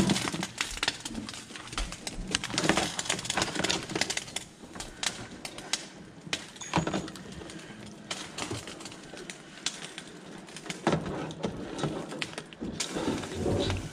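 Pot of water at a boil bubbling while live red rock crabs are lowered in, their shells and legs clicking and knocking against the metal pot many times.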